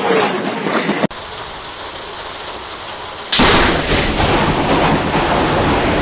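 Steady rain, then about three seconds in a sudden loud thunderclap from a close lightning strike, which keeps sounding over the rain.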